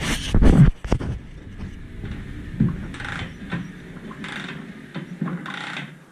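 Kick-starter of a Pantera 50 pit bike being pulled down by hand a few times, turning the mud-soaked engine over with the spark plug out. A heavy clunk in the first second is the loudest sound, followed by a few shorter mechanical noises; the strange noise the engine makes as it turns points to mud or water damage inside.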